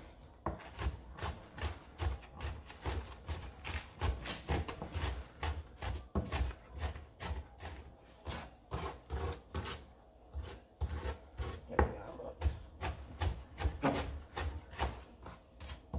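Kitchen knife rough-chopping onion and bell peppers on a cutting board: a steady run of quick chops, a few strokes a second.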